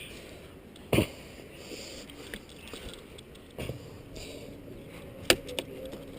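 A few sharp knocks and scuffs from a person climbing a tree on a safety rope, the loudest about a second in and another sharp one near the end, over a low steady hiss.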